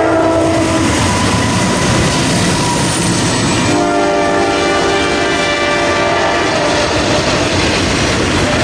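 Diesel-led CSX freight train passing close by: the locomotive's air horn sounds several notes at once in two blasts, one ending just under a second in and a longer one from about four to six and a half seconds in, over the steady rumble of engines and wheels on the rails.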